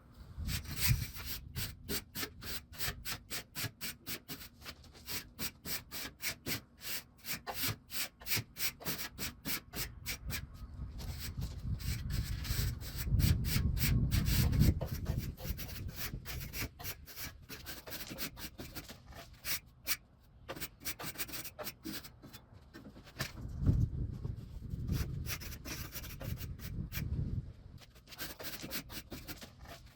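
A brush scrubbing dust and dirt off air-conditioner coils in quick, rhythmic strokes, about three a second, with a couple of stretches of low rumble midway and near the end.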